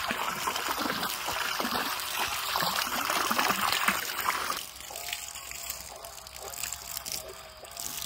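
Water gushing out of a garden hose fed by a 12-volt bilge pump, splashing onto wet rock and gravel. About halfway through, the splashing drops to a softer pour.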